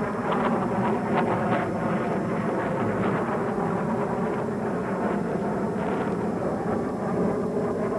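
Jet fighter aircraft in flight: a steady, dense engine rush with a rough, pulsing edge in the first couple of seconds.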